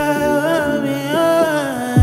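Background music: a sung vocal line gliding up and down over a sustained backing, with a deep bass drum hit at the start and again at the end.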